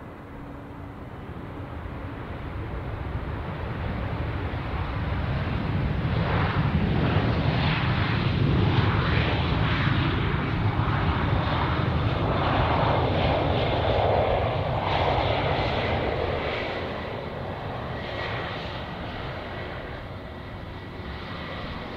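Jet airliner passing close by on landing: a low engine rumble that builds over several seconds, is loudest through the middle, then fades, leaving a faint steady whine near the end.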